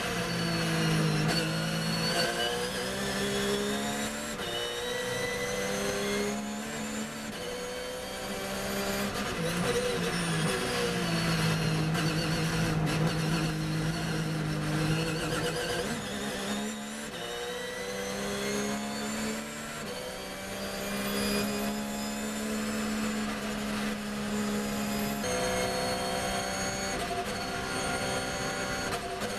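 Porsche 911 GT3 R race car's flat-six engine heard from inside the cockpit, pulling hard with its pitch climbing through the gears, dropping back on upshifts and under braking for corners, then climbing again several times.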